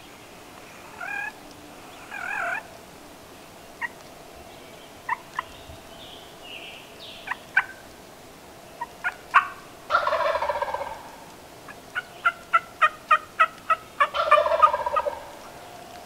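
Wild turkey gobbler gobbling twice, a rattling call about a second long, about ten seconds in and again near the end. Before the second gobble comes a run of about seven sharp, evenly spaced notes, about four a second, with scattered single short calls earlier.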